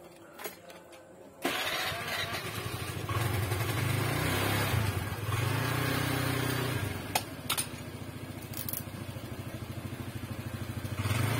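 A motorcycle engine starts up about a second and a half in and keeps running, its speed rising and falling several times. Two sharp clicks sound in the middle.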